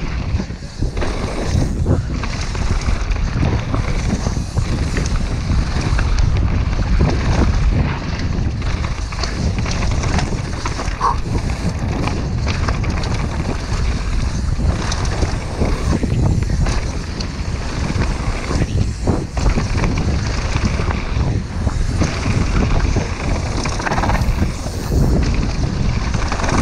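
Mountain bike running fast down a rough gravel and dirt trail: a constant rumble of wind buffeting the GoPro's microphone, mixed with tyre crunch and frequent knocks and rattles from the bike over bumps.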